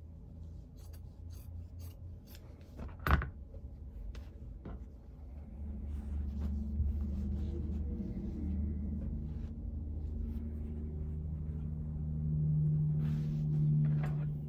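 Cotton fabric rustling and rubbing as it is handled and unfolded on a cutting table, with a run of small scissor-like clicks in the first few seconds and one sharp click about three seconds in. A low steady hum comes in after about five seconds and grows stronger near the end.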